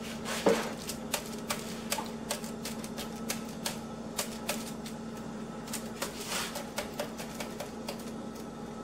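Silicone spatula scraping and tapping along the edges of a raw meatloaf on a foil-lined baking sheet: a string of irregular light clicks and scrapes against the foil and pan, over a steady low hum.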